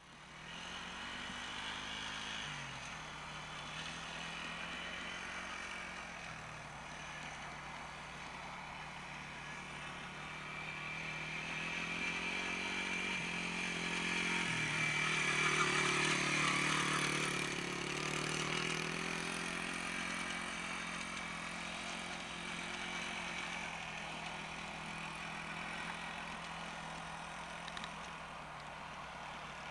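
Small dirt bike's engine running under a rider, its note dropping and climbing again several times with the throttle. It grows louder as the bike comes near and is loudest a little past halfway.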